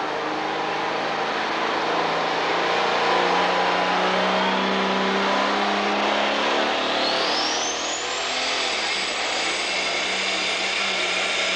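Turbocharged diesel engine of a super stock pulling tractor running at full power as it launches and pulls the sled. A high whistle climbs steeply about halfway through and then holds a steady high pitch.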